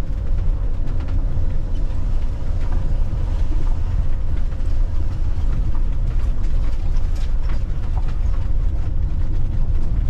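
Hymer MLT 580 4x4 camper van driving slowly on a dirt road, heard from inside the cab: a steady low rumble of engine and tyres on the rough surface, with occasional rattles and knocks from the body.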